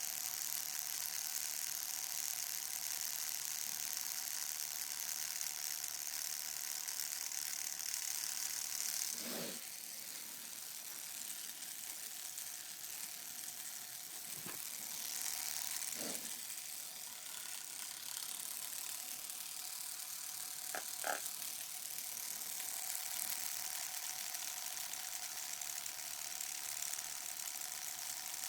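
Homemade tattoo machine, built from a mechanical pencil and a guitar-string needle, running with a steady mechanical buzz while tattooing skin. It gets quieter about nine seconds in, with a few short knocks along the way.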